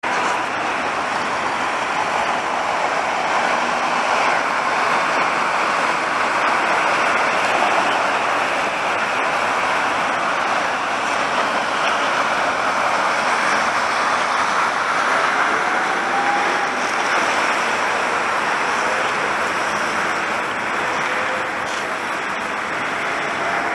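Steady city traffic noise, a continuous hiss and rumble of cars passing on wet streets.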